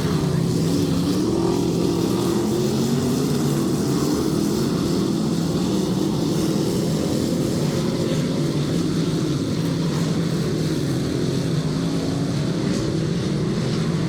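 Dirt-track race cars' engines running around the oval, steady and loud, their pitch wavering up and down.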